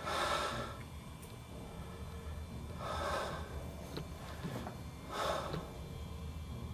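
A person breathing close to the microphone: three breaths about two and a half seconds apart.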